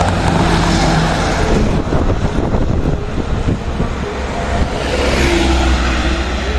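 Hino 500 truck's diesel engine and tyres passing close, then fading as it pulls away; about four and a half seconds in, a second truck's engine rumble builds as it passes close.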